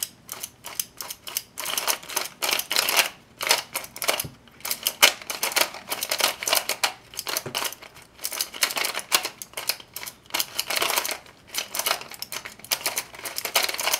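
Stickerless MoYu magnetic Skewb being turned by hand: its plastic pieces clack and click as the layers are turned in quick runs with short pauses between them.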